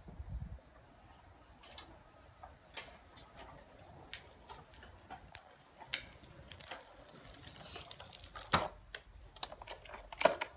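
Child's tricycle rolling on concrete, its wheels and frame giving scattered light clicks and rattling taps, the sharpest a little before the end.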